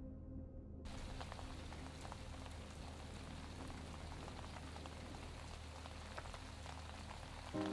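Shower water running and spattering steadily, cutting in suddenly about a second in.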